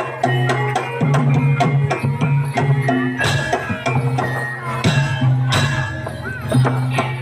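Javanese traditional dance music: drums and struck percussion playing a busy rhythm over short repeated pitched notes and a sustained low tone.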